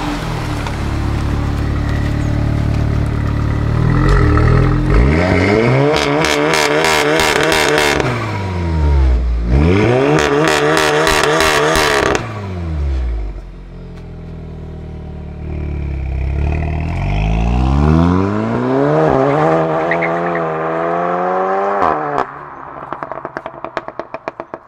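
Tuned Volkswagen Golf 7 R's turbocharged 2.0-litre four-cylinder pulling hard through the gears: the exhaust note climbs, drops sharply at each shift and climbs again, several times over. Near the end the engine note cuts off and a quick run of sharp crackles follows.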